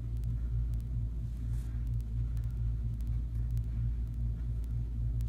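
Steady low rumbling hum with a few faint light clicks.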